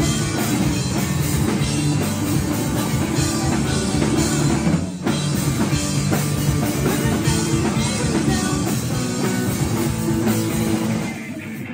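Live rock band playing loud: drum kit, electric bass and electric guitars through amplifiers. The music breaks off for a moment about five seconds in, and near the end it drops to a quieter, thinner sound.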